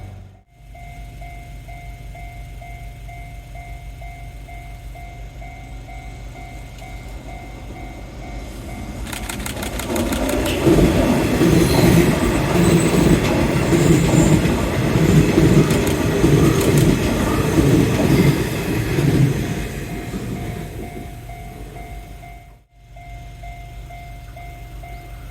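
Level-crossing bell ringing in a steady repeating ding while a Nishitetsu 6000 series electric train comes up and passes, its wheels clacking rhythmically over the rail joints. The train is loud for about ten seconds in the middle, then fades, and near the end the crossing bell is heard ringing again.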